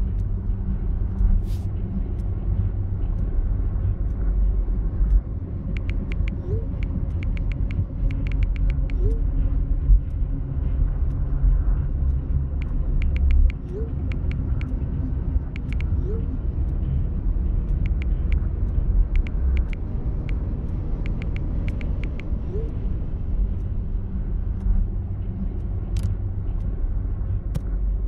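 A steady low rumble throughout, with short runs of quick light clicks, like taps on a smartphone's keyboard, and a few faint short rising chirps.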